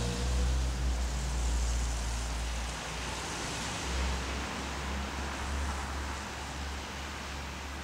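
Street traffic noise: a low rumble that fades about three seconds in, over a steady hiss.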